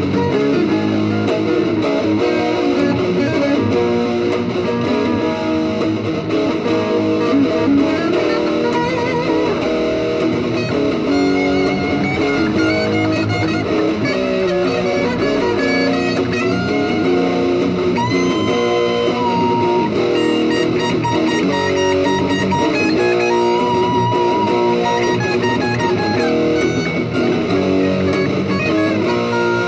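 Two Stratocaster-style electric guitars jamming together, playing a dense run of changing notes, with one higher lead note that slides up and is held for a moment about two-thirds of the way through.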